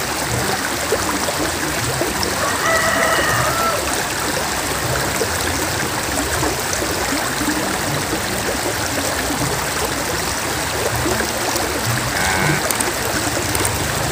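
Shallow river flowing steadily over and around rocks, a constant rushing of water.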